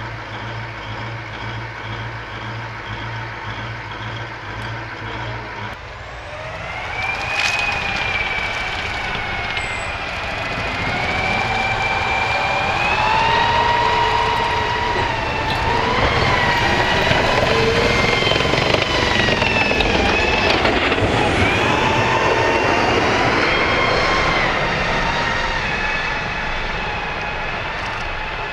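An armoured vehicle's diesel engine idles steadily. After about six seconds it gives way to an M1 Abrams tank driving closer: the high whine of its gas-turbine engine and running gear wavers up and down in pitch and grows louder.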